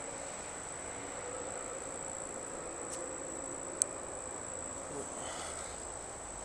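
Insects trilling steadily at one high pitch, with a single sharp click a little past the middle.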